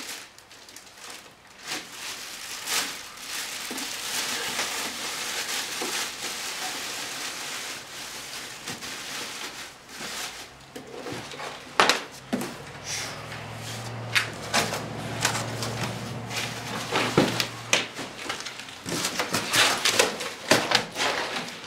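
Cardboard box and packing being shifted and pulled about as a heavy air compressor is worked out of it: rustling and scraping with scattered knocks and thumps, sharper ones in the second half. A low steady hum sounds for a few seconds midway.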